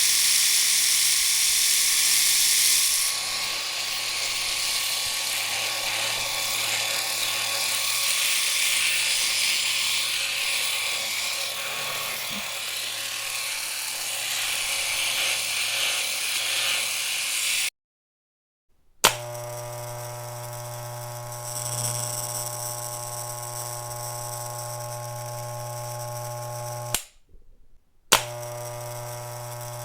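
Electric shaver running in two stretches. The first is a hissy buzz, loudest in its first few seconds, which cuts off after about 18 seconds. After a second of quiet it is switched back on with a click and gives a steady, low, humming buzz, which stops briefly near the end and clicks on again.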